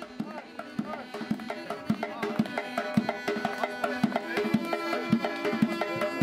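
Armenian folk music: a dhol drum beating a steady rhythm under two double-reed wind pipes playing a melody. It grows louder over the first couple of seconds.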